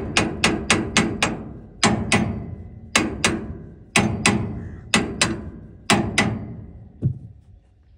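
Steel hammer striking a metal part on a combine harvester, each blow ringing briefly. A quick run of about six blows is followed by pairs of blows about once a second, and a last, lighter blow near the end.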